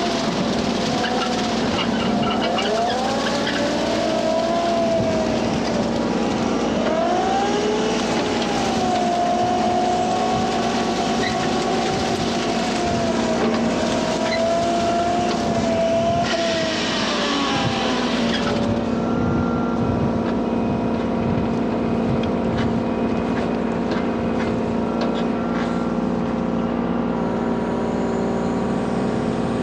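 Kubota U35-4 mini excavator's diesel engine running steadily under load, driving a hydraulic brush cutter, with a whine that wavers up and down in pitch as the cutter works through reeds and grass. About two-thirds of the way through the high hiss of cutting drops away, leaving the engine and hydraulics running.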